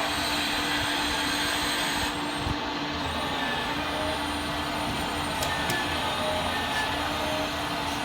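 Hydraulic oil pump of an RC scale model truck running with a steady electric whir. A low hum switches on and off over it, with a couple of faint clicks about five and a half seconds in.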